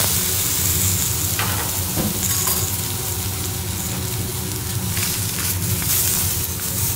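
Lobster tails searing flesh-side down on a hot teppanyaki griddle: a steady sizzle with a few faint ticks.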